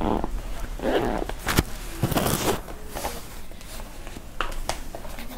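Inside a Tokyu 8500-series commuter car: passengers shuffling and rustling, in several short noisy bursts in the first couple of seconds, then scattered light clicks, over a low steady hum.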